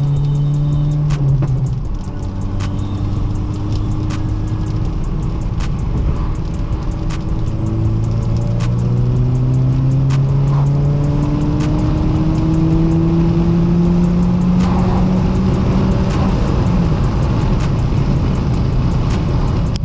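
Audi A4 B8's turbocharged 2.0 TFSI four-cylinder with a catless downpipe and AWE track exhaust, driven through the gears. The engine note drops at gear changes a little after the start and near the end, and climbs steadily through one long pull in between. Sharp exhaust crackles from the crackle tune run throughout.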